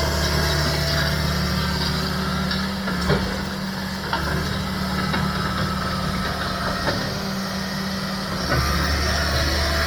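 Engine idling steadily with a low hum. The low tone weakens for a few seconds in the middle and comes back strongly about eight and a half seconds in.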